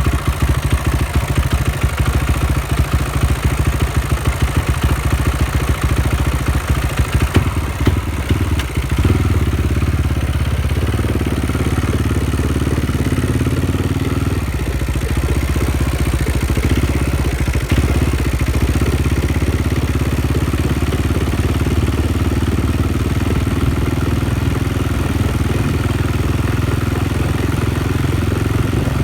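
KTM 560 SMR's single-cylinder four-stroke engine running, picked up by a phone taped to the handlebars. For about the first nine seconds it pulses fast and unevenly; after that it runs steadier and higher in pitch. The engine has developed a judder and no longer pulls smoothly, which the owner says is heard under acceleration.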